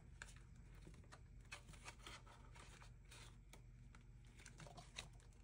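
Faint rustling of paper banknotes and plastic binder envelopes being handled, with scattered soft clicks as cash goes into a ring-binder envelope and the page is turned. A low steady hum runs underneath.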